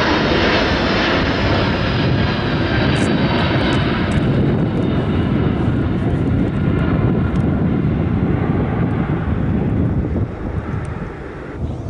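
Jet engine noise from a DC-10 air tanker passing low overhead. Its high hiss falls away over the first few seconds, and the whole sound drops off about ten seconds in as the plane moves away.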